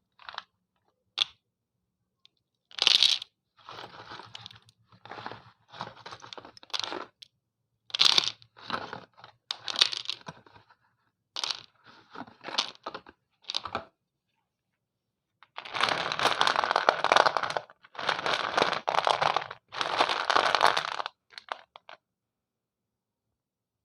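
Slate pencils being bitten and chewed close to the microphone: a run of short, dry crunches, then three longer stretches of dense crunching in the second half.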